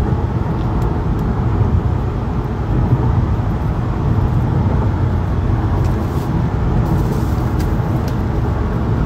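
Steady low rumble of a tour bus's engine and road noise, heard from inside the passenger cabin.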